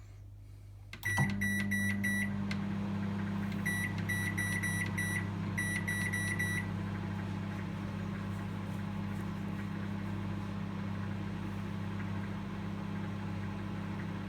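Microwave oven started up: a steady hum sets in about a second in and runs on, with three quick runs of short keypad beeps, about fifteen in all, over the next several seconds.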